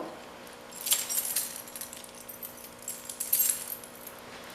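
Keys jangling on a ring in two short bursts, about a second in and again about three seconds in, as the tractor's ignition key is handled before starting. A faint steady hum runs underneath.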